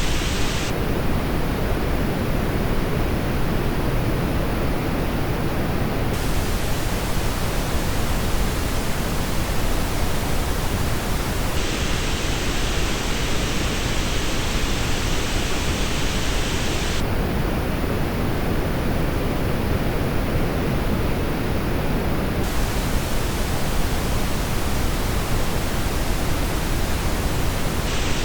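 Steady pink-noise test signal for an earbud comparison, its tone changing abruptly about every five and a half seconds as it cycles through three versions: one with the full treble, one missing the very top, and one with a hollow in the upper treble.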